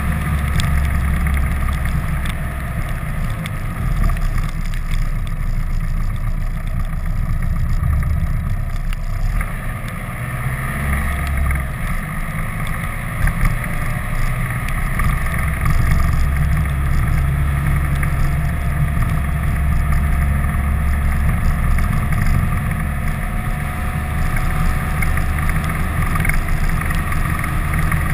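Vehicle driving along a winding road heard through a camera mounted outside it: a steady low rumble of engine and wind buffeting the microphone, with the engine's pitch shifting slowly in the second half.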